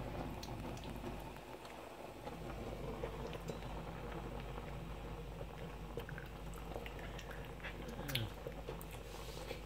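Pot of pasta water at a steady boil, a faint even bubbling hiss with a few light clicks.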